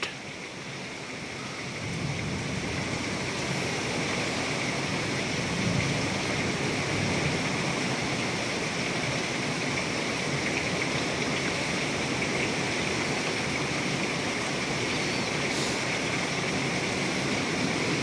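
Heavy wind-driven thunderstorm rain pouring down: a steady rushing hiss that swells over the first two seconds and then holds.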